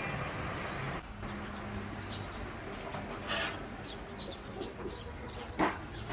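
Birds calling faintly over steady outdoor background noise, with two brief sharp knocks, one about three seconds in and one near the end.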